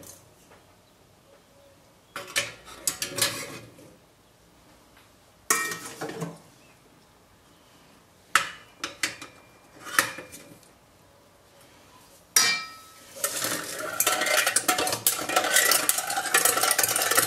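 A plastic ladle scoops red currants and knocks against an enamel bowl and a stainless food mill in several short bursts of clinks. From about 13 seconds in, the food mill's crank turns steadily, with its blade scraping and pressing the berries through the sieve to strain out the seeds.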